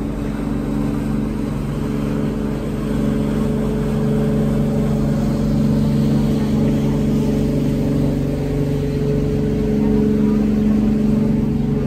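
Diesel engine of a wooden two-masted tour boat running steadily under way as it motors past close by, a steady drone that swells a little near the end.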